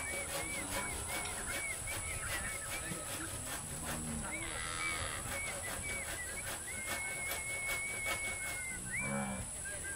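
Outdoor animal sounds: repeated high chirping calls over a steady high-pitched drone, with a short, lower call near the end.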